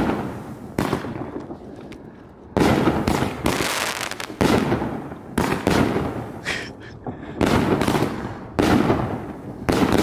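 Aerial fireworks bursting overhead: a string of sharp bangs, roughly one a second, each trailing off before the next.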